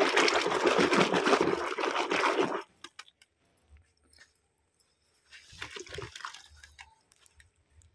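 Soapy water sloshing in a plastic washtub as clothes are hand-washed in detergent suds, loud for the first two and a half seconds and then stopping. A shorter, quieter squelch of wet cloth in the suds comes about five and a half seconds in.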